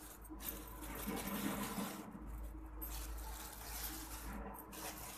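Ground garam masala being poured from a plastic bag into a plastic spice-box compartment: a soft, hissing trickle of sliding powder, with the bag rustling.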